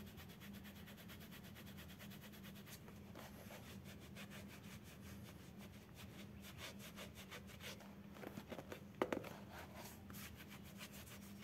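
Cloth rubbing back and forth over a bicycle saddle cover in quick, faint strokes, wiping off a screen-printed decal with repellent lotion. A few louder strokes come near the end, over a faint steady hum.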